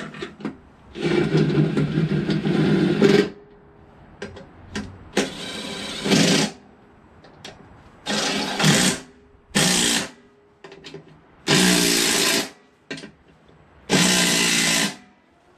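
A DeWalt cordless driver running in six short bursts, the first about two seconds long and the rest shorter, as it drives in the bolts holding a mower deck spindle housing to the deck.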